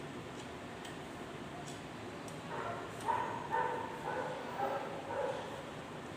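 A dog barking repeatedly, about two short barks a second, starting about halfway through.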